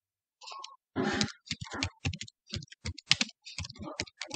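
Typing on a computer keyboard: a quick run of keystrokes starting about a second in.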